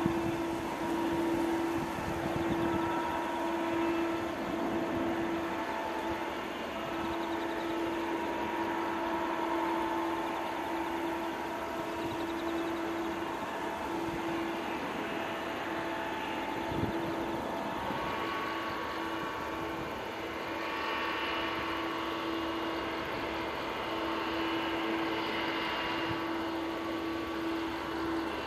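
Boeing 777-200ER's twin turbofan engines running at low taxi power: a steady hum with several high whining tones that drift slightly in pitch, and no rise in power.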